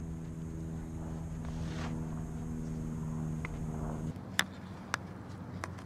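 Field hockey stick striking the ball on artificial turf: a few sharp cracks, the loudest a little after the middle. Under them, a steady low engine-like hum that cuts off suddenly about four seconds in.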